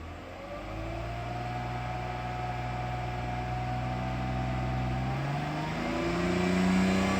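Mercedes-Benz W124 280E's 2.8-litre straight-six engine revving: the pitch climbs about a second in and holds steady, then rises again, growing louder, from about five seconds in.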